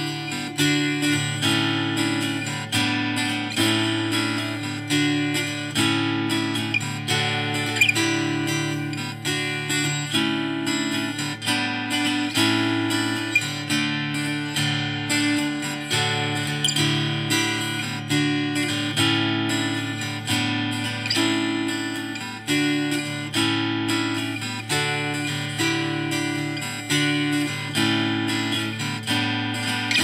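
Background music: strummed acoustic guitar playing with a steady rhythm.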